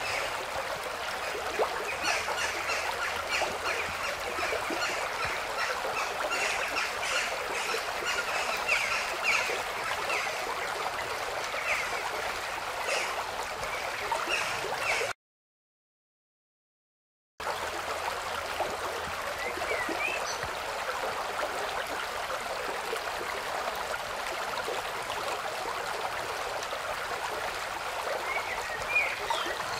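Steady rushing of flowing water with short bird calls over it. The sound cuts out to silence for about two seconds midway, then resumes.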